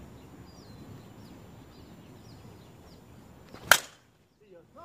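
A slowpitch softball bat striking a pitched 52/300 softball: one loud, sharp crack near the end.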